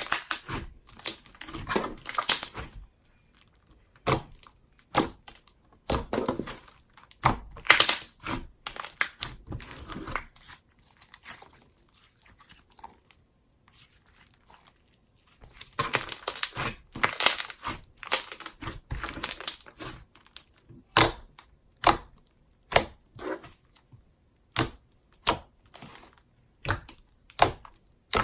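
Jelly slime being squished and stretched in the hands, giving irregular crackles and bubble pops, with a quieter spell about halfway through.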